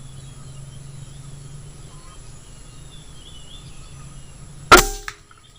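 A single gunshot at a pigeon, sudden and very loud about three quarters of the way in, with a short tail as it dies away. Before it, faint insects and birds chirp over a steady low hum.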